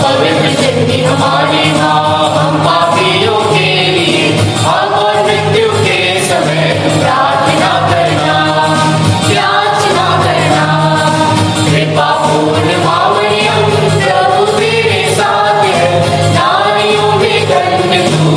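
A choir singing a devotional Christian hymn over instrumental accompaniment with steady, sustained low bass notes.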